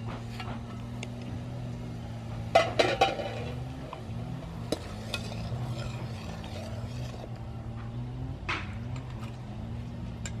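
Metal clinks, clanks and scrapes of a lid and a ladle against an aluminium cooking pot as the lid comes off and the pot is stirred, with the loudest clatter about two and a half seconds in. A steady low hum runs underneath.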